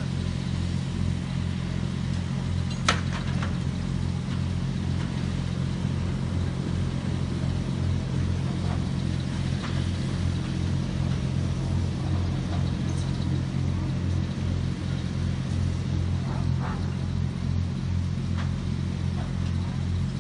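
A steady, low mechanical hum with an even pulse, like a running engine or generator, with one sharp click about three seconds in.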